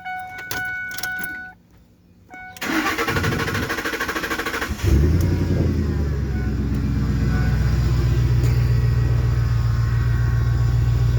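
A car's warning chime dings, then the starter cranks the engine for about two seconds. The engine catches about five seconds in and settles into a loud, steady idle.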